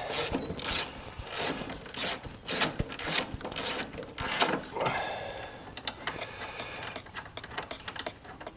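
Hand socket ratchet clicking in irregular runs of strokes as the bolts holding a strut tower bar are loosened.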